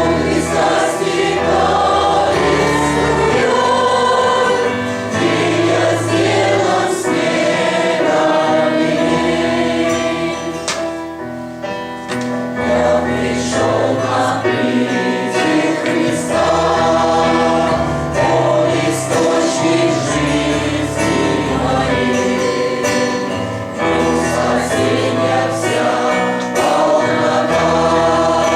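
Choir singing a hymn with instrumental accompaniment, with a brief softer passage near the middle.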